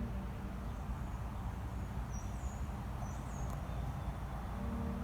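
Outdoor ambience: a steady low rumble with a few short, high bird chirps in the middle. A low steady hum comes back near the end.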